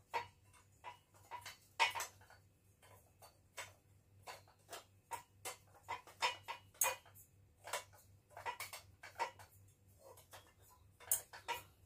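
Irregular clicks and light metallic taps as a screw is turned by hand with a screwdriver into the black metal frame of a flat-pack laptop table, the tool and parts knocking against the metal.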